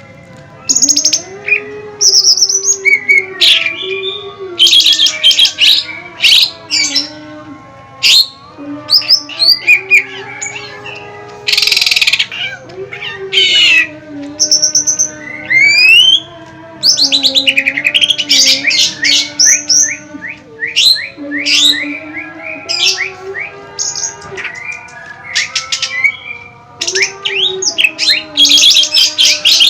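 Songbirds singing loudly and nonstop in a rapid mix of chirps, trills and quick rising whistles, over a low, wavering steady tone.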